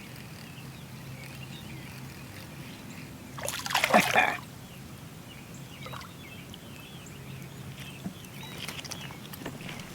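A small blue catfish splashing at the water's surface once, about four seconds in, as it is reeled in. A steady low hum and a few bird chirps sound underneath.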